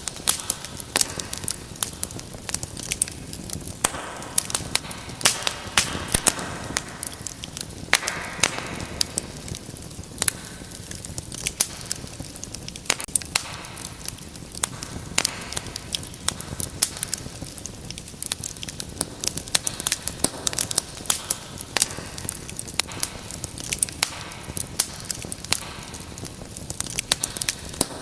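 Wood fire in a fireplace crackling: many irregular sharp pops and snaps over a soft hiss of burning, with occasional brief rushing swells.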